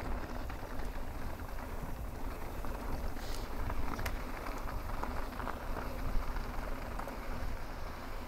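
Mountain bike rolling over a dirt and rock trail: steady tyre and trail rumble with wind buffeting the camera microphone, and a few sharp clicks and knocks from the bike.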